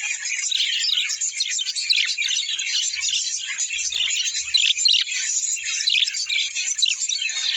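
A flock of small birds chattering together: many quick, high chirps and warbles overlapping in a dense, unbroken din.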